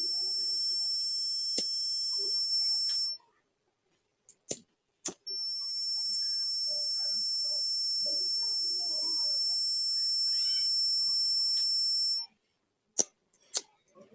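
Homemade fire alarm's buzzer sounding a very high-pitched, steady tone. It cuts off about three seconds in, comes back on about two seconds later for roughly seven seconds, then stops again. A few sharp clicks fall in the gaps.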